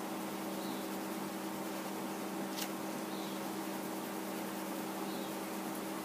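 Steady low hum over an even hiss, with a single faint click about two and a half seconds in.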